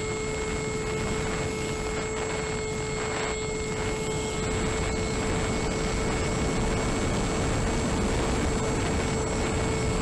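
Brushless electric motor and propeller of an RC flying wing running at steady throttle, a constant whine heard from a camera mounted on the wing, over a heavy rush of wind on the microphone.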